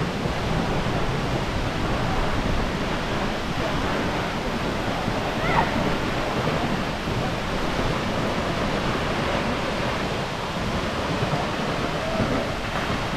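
Steady rush of a tall waterfall plunging into a pool, an even wash of water noise. A brief high-pitched cry stands out about five and a half seconds in.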